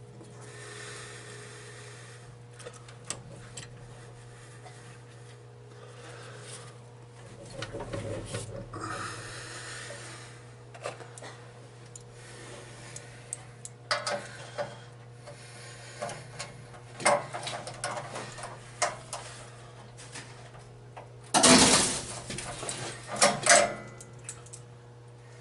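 Handling noises of tools and metal parts: scattered scrapes, rubs and knocks, with the loudest clatter about two-thirds of the way in and a few sharp knocks shortly after, over a steady low hum.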